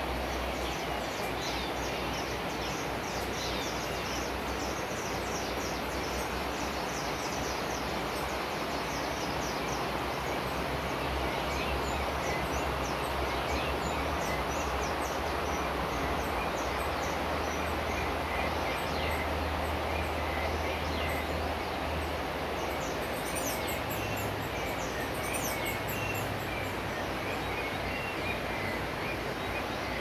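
Wild birds chirping and calling over a steady rushing background. A quick run of high chirps comes in the first ten seconds, then scattered, sparser calls later.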